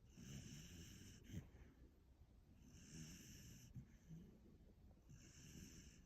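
Sleeping puppy snoring faintly with a whistling wheeze on each breath. Three breaths, about two and a half seconds apart.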